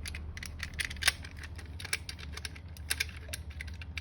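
Irregular small metallic clicks and light rattles as mortise lock hardware (lever handle, spindle and lock body) is handled and fitted, over a steady low hum.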